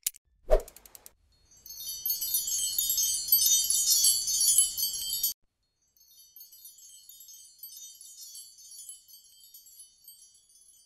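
Intro sound effect: a pop and a few quick clicks, then a bright, dense tinkling of chimes that stops abruptly about five seconds in, followed by a fainter trail of chimes.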